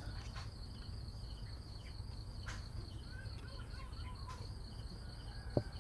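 Faint insect chirping, an evenly pulsing call at one high pitch, over a low steady hum; a single soft knock near the end.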